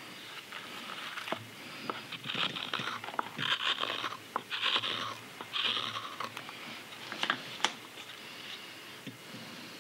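Hook knife slicing shavings from the inside of a green sycamore belt cup: a run of about four scraping cuts roughly a second apart, with a few sharp clicks, the loudest near the end.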